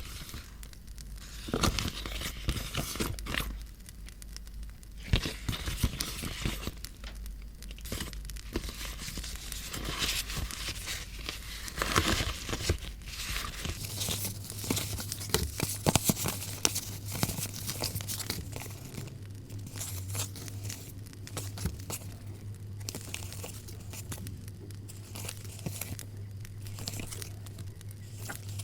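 Paper being handled close up, crinkling and tearing in irregular bursts, over a constant crackle of a campfire sound.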